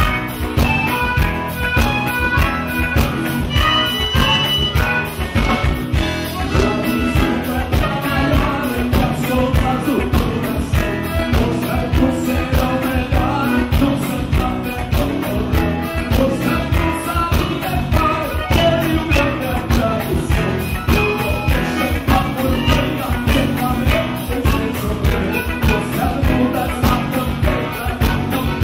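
Gaúcho band music with accordion and electric bass playing to a steady beat, with a voice singing.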